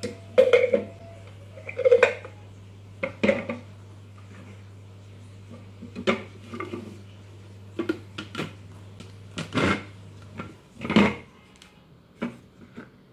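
Hard plastic parts of a Philips Avent SCF870 steamer-blender being fitted together: the blade unit set into the jar and the lid put on and locked. The result is a string of irregular plastic knocks, clacks and clicks.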